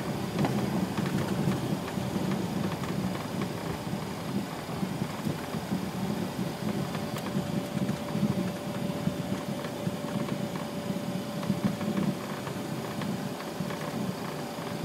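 Steady cockpit noise of a Boeing 737-300 taxiing with its engines at idle: a low even rumble and hum, with a faint steady whine that comes in about halfway through.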